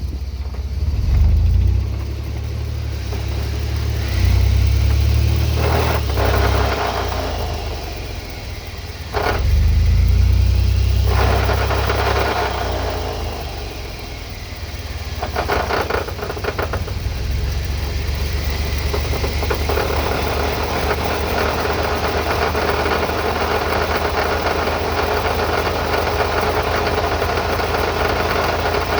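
Truck drivetrain running under throttle, the engine surging and easing off several times in the first half and then running steadily, with a whine that rises and falls along with it. This is the grinding noise that the owner believes comes from the shaved GM 14-bolt rear axle, after the transfer case was rebuilt and the driveshaft rebalanced.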